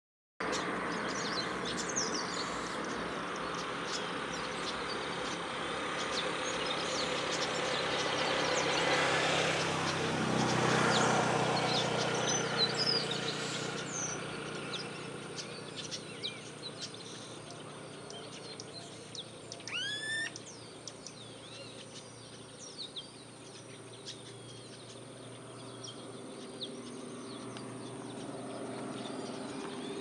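A flock of chestnut-capped blackbirds (chapéu-de-couro) chattering, with many short high chirps overlapping. A low hum swells and fades around ten seconds in, and a single rising whistle sounds about twenty seconds in.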